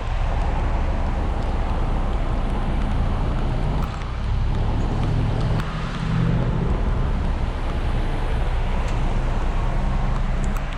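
Heavy diesel truck engine running steadily, a constant low hum that swells slightly midway, over a wash of road and traffic noise.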